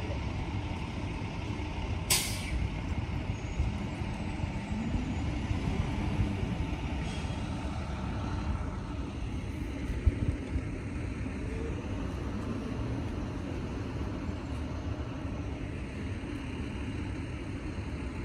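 Steady low rumble of road traffic, with a short sharp hiss about two seconds in and a brief knock about ten seconds in.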